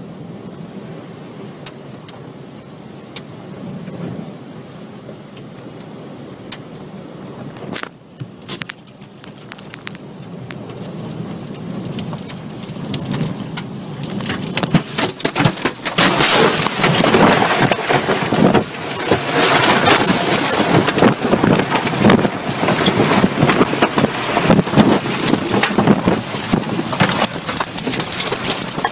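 Tornado wind and rain: a rushing storm noise with scattered sharp ticks of rain and debris striking, turning much louder about halfway through into a dense, rapid pelting.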